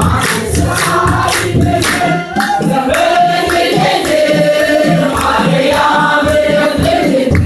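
Ethiopian Orthodox congregation singing a hymn together in many voices, over a steady beat of about two strokes a second.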